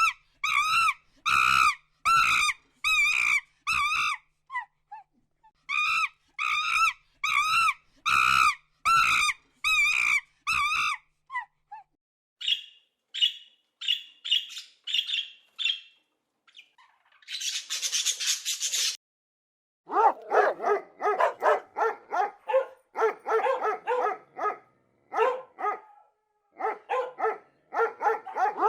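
A run of different animal calls. First come repeated high, wavering yelps, about two a second. Then come shorter, higher chirps and a brief hiss, then a fast, dense series of lower barks.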